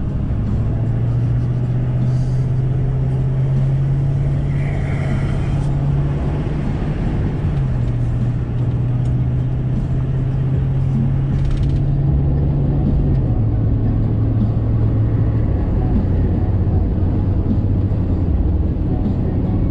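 Inside the cab of a Ford Super Duty pickup with a 6.7 L Power Stroke diesel V8 at highway speed: a steady engine drone over road and tyre noise. The engine note drops a step in pitch twice, about seven and thirteen seconds in.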